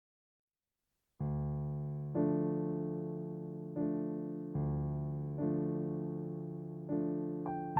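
Background music: slow electric piano chords, each struck and left to fade, beginning after about a second of silence.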